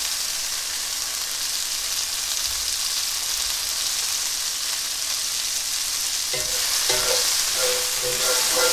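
Arugula and broccoli rabe frying in olive oil and garlic in a cast-iron skillet, a steady sizzle. In the last two seconds or so a utensil stirs the greens, scraping and knocking against the pan.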